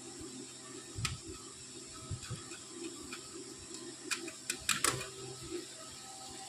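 Scattered small clicks and taps from handling tools and amplifier parts, with a quick cluster of clicks about four to five seconds in, over a steady faint hiss.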